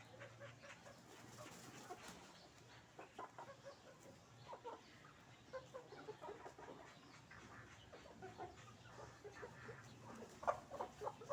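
Hens clucking softly: short, scattered calls, with a louder bunch of clucks near the end.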